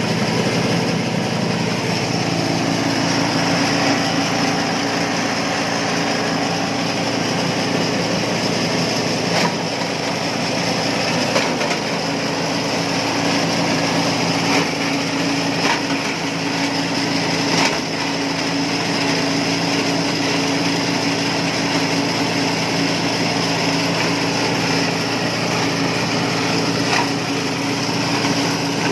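Compost and organic-waste shredder machine running steadily, its motor giving a constant drone, with a few short sharp knocks now and then.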